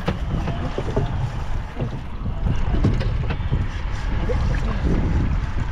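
Wind buffeting the microphone over water sloshing against a small boat's hull, with scattered light knocks and clicks.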